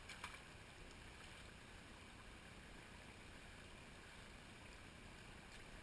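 Faint, steady trickle of a small rocky stream, with a brief click shortly after the start.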